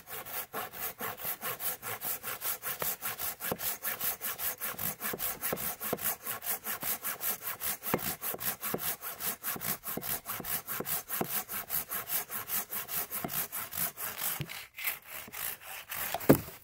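Silky folding pruning saw cutting through a green aspen pole in quick, even rasping strokes, about four a second. It pauses briefly near the end, then gives a louder crack just before the sawing stops.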